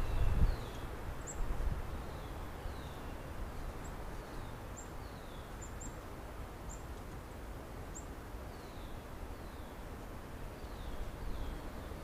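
Small birds calling in woodland: many short, high chirps that fall in pitch, repeated every second or so, over a low rumble that is strongest in the first half second.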